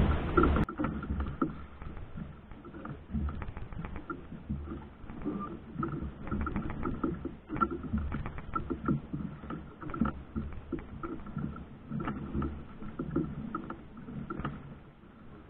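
Water lapping and sloshing against the hull of a small boat at sea, with irregular knocks.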